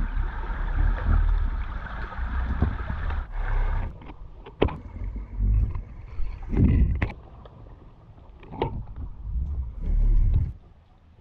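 Muffled underwater sound from a camera submerged in murky sea water: a low, surging rumble of water moving around the housing, with a few sharp clicks or knocks. The rumble dies away shortly before the end.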